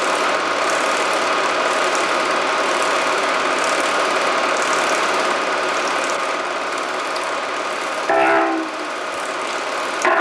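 Soundtrack of a 1987 Super 8 film: a loud, steady drone of dense noise with many held tones running through it, and a short cluster of pitched tones about eight seconds in.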